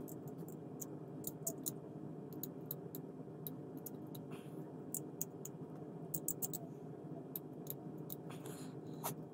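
Scattered light clicks and ticks of small plastic scale-model car parts being handled and fitted by hand, over a steady low hum.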